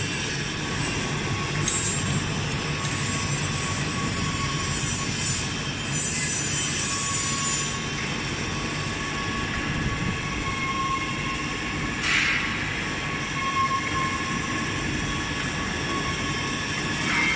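Steady factory machinery noise: a low rumble with a few faint high whining tones above it, and a brief louder rush of noise about twelve seconds in.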